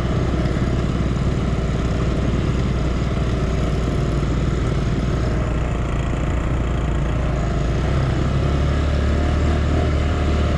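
Grizzly 200cc ATV engine running steadily, with no clear revving or change in pace.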